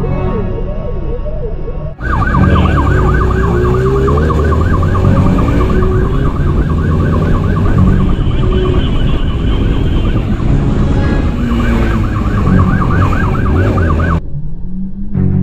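Police motorcycle siren in a fast yelp, its pitch sweeping up and down several times a second over the motorcycle's engine noise during a pursuit. It breaks off briefly about two seconds in and stops near the end, leaving the engine noise.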